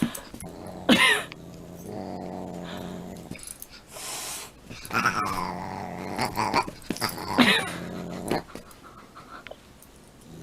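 A cat growling, with several loud drawn-out cries: one about a second in, one falling in pitch about five seconds in, and another near seven and a half seconds.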